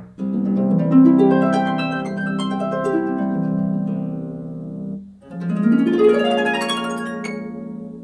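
Harp transition sound effects: a run of plucked harp notes ringing over one another, then, about five seconds in, a second harp effect that sweeps upward in a rising glissando and rings out.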